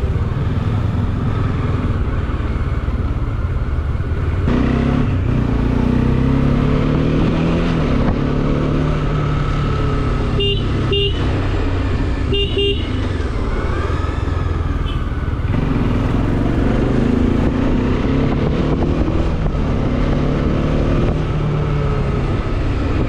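Bajaj Dominar 400's single-cylinder engine running under way, its pitch rising and falling with throttle and gear changes. A vehicle horn beeps in quick pairs twice, about halfway through.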